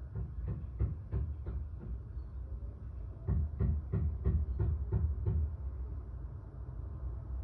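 Two runs of sharp knocks over a low rumble: about five spaced knocks in the first two seconds, then a louder, quicker run of eight or nine at about four a second in the middle.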